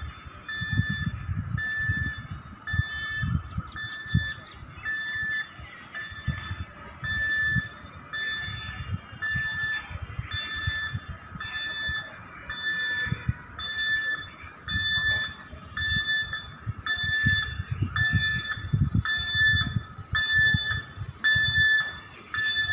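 An express train's coaches rolling slowly past during shunting, with a low rumble and irregular clunks from the wheels. A steady electronic beep repeats a little faster than once a second throughout.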